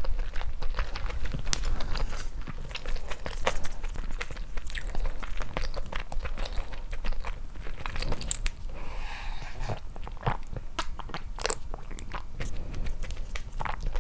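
Close-miked chewing and biting of food, with many small wet clicks and crunches.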